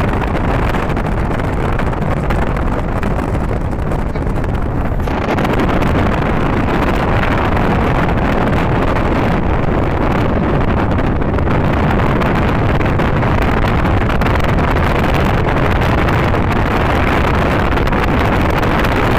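Wind buffeting the microphone and road noise from a moving car, a steady loud rush that grows a little louder about five seconds in.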